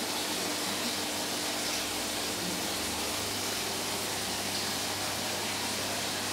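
Steady rush and hiss of aquarium water circulation from the tank filters and pumps, with a faint low hum under it.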